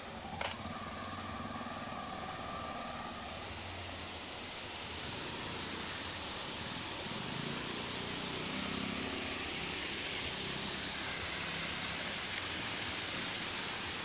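A three-wheeler auto-rickshaw's engine running close by for the first few seconds, over a steady outdoor hiss that carries on alone afterwards.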